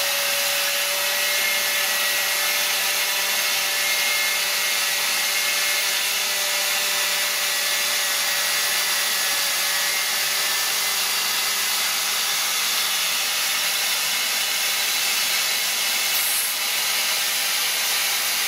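Vacuum suction running through a small cyclone dust separator: a steady rush of air through the hose, with a faint whine that fades about halfway through.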